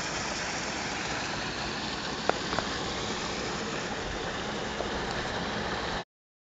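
Steady outdoor street ambience, an even noisy wash, with two short clicks about two and a half seconds in; it cuts off abruptly into silence about six seconds in.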